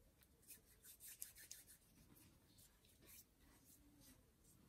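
Very faint, short scratchy strokes of a nail brush drawn over a plastic nail tip, laying on a thick coat.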